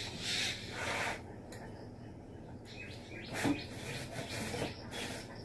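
Faint rustling and scraping as things are handled on kitchen shelves, in a few short bursts: near the start, about a second in, about three and a half seconds in, and near five seconds.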